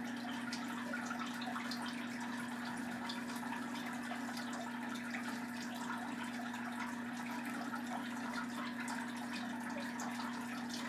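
Oil pastel scratching on paper as it colours in, a haze of many small scratchy ticks, over a steady low hum.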